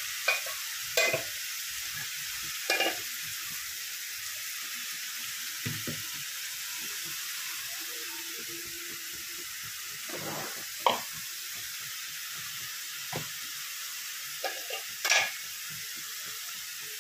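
Tomato-and-spice masala frying in oil in a steel pan: a steady high sizzle, with a wooden spatula stirring and now and then knocking sharply against the pan, a few separate knocks.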